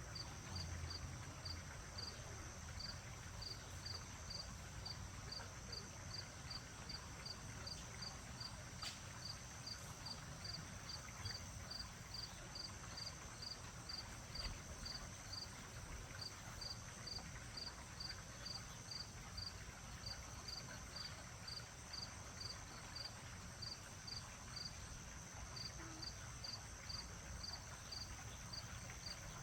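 Crickets chirping in a steady rhythm, about two high chirps a second with a few brief pauses, over a soft, low rush of wind.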